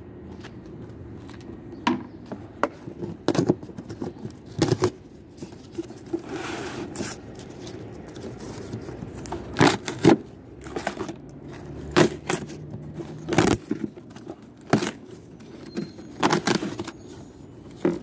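Cardboard carton of bottled water being torn open by hand: irregular sharp cracks, knocks and scraping of cardboard and plastic bottles, with a stretch of scratchy tearing about six seconds in. A steady low hum runs underneath.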